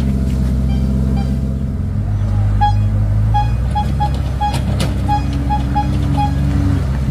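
Engines of the excavator and approaching vehicles running steadily, with a string of short, high electronic beeps from about two and a half seconds in until just past six seconds. An engine note rises slightly about five seconds in.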